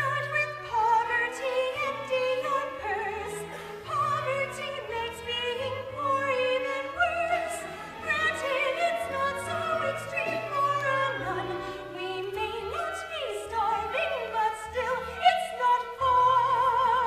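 High soprano voice singing in an operatic style, a quick melody of short notes with a wide vibrato, over a musical accompaniment with a low bass line.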